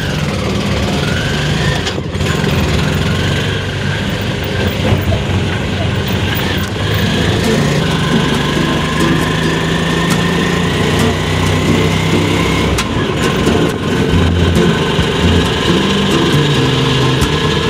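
Auto-rickshaw's small engine running as the rickshaw pulls away and drives along, heard from inside the open cabin. A whine rises slowly in pitch through the middle as it gathers speed, then breaks off.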